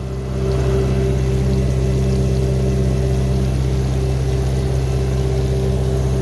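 An engine running steadily, with the hiss of water spraying from a top-dressing sprayer on a test run with plain water; the spray noise comes up slightly in the first second.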